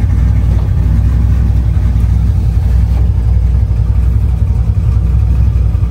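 Chevy C10 pickup's engine running with a loud, steady low rumble, heard from inside the cab.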